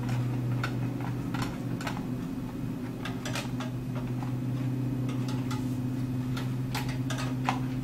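Scattered light clicks and taps of a graphics card and its metal bracket knocking against a PC case's expansion-slot area as the card is lined up by hand, over a steady low hum.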